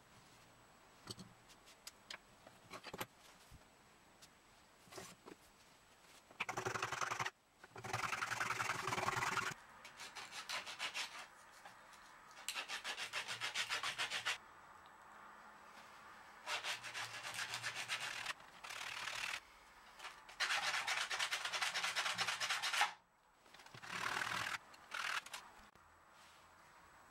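Wooden knife-handle scales, clamped to a steel blade, rubbed back and forth on a sheet of sandpaper by hand: several bursts of quick rasping strokes, each lasting one to three seconds with short pauses between. A few light clicks and handling knocks come before the sanding starts.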